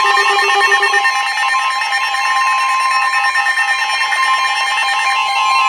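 Emergency Alert System attention tone: a steady two-tone alarm signal, with a lower pulsing tone underneath that stops about a second in.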